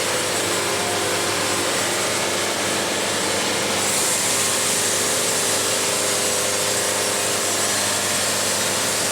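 Portable band sawmill running steadily while its blade saws through a log. A brighter hiss joins about four seconds in.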